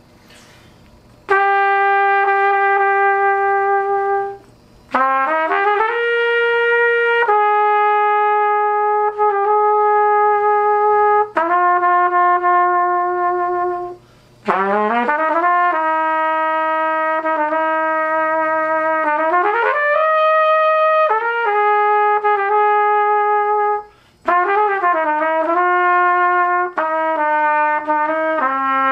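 Vintage Martin trumpet played solo: long held notes joined by slurs, with short pauses for breath between phrases.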